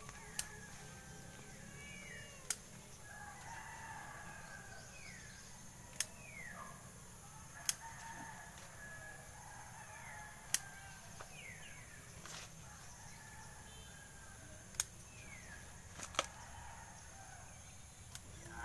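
Sharp snaps, about eight of them spread over the stretch, as sweet potato shoots are picked by hand. Short falling bird calls run in the background.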